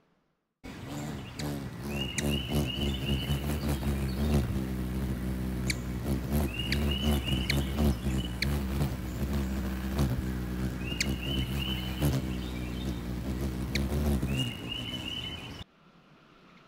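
Male ruby-throated hummingbird hovering close, its wings humming low and steady, with four short runs of high twittering chips a few seconds apart. The hum cuts in about half a second in and stops suddenly near the end.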